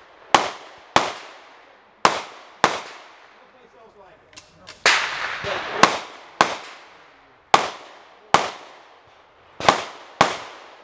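CZ 2075 RAMI P subcompact 9mm pistol firing about ten shots, mostly in quick pairs about half a second apart, each shot echoing briefly. A pause with a few faint clicks comes around four seconds in before the firing resumes.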